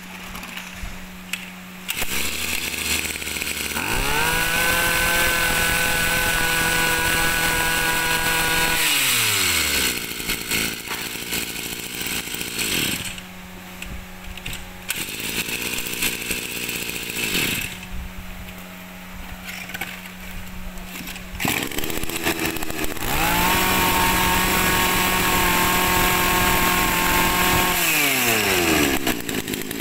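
Two small two-stroke brushcutter engines, a Kawasaki TD24 and a Mitsubishi T140, are test-run one after the other with their clutch shoes removed. Each idles, is held at a steady high rev by the throttle for about five seconds, then winds down with a falling pitch. The first high run is about four seconds in, the second near the end.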